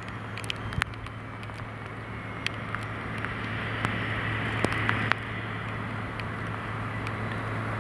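Heavy rain with many individual drops ticking sharply close to the microphone, over a steady low hum.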